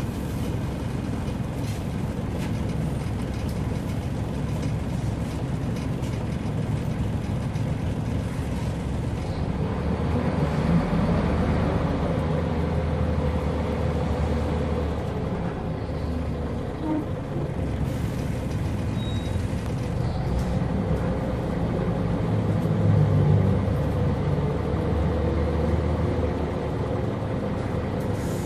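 Scania L94UB bus engine and ZF gearbox heard from inside the passenger saloon while the bus is under way, with road and body noise. The engine note swells twice, about a third of the way in and again later on.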